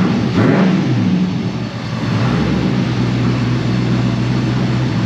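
Freshly built twin-turbo 6.0-litre LS V8 running just after being brought to life: the revs swing up and down twice near the start, then settle into a steady idle about two seconds in.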